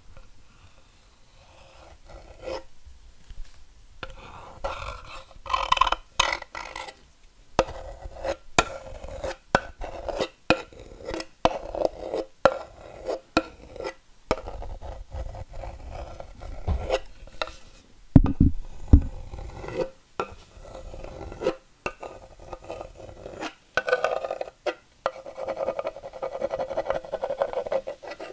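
Irregular scraping and rubbing on a hard surface, broken by many short knocks and clicks: a sound effect made by hand.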